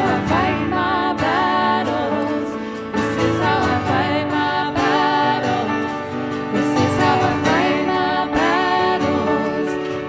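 Contemporary worship band music with guitar and a singing voice.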